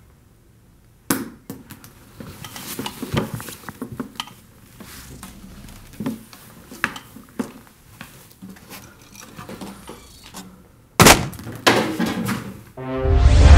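Shoes and hands knocking and scuffing on a tabletop as a man climbs onto it, kneels and stands up, a string of small clattering knocks with two loud thumps near the end. Theme music with brass starts just before the end.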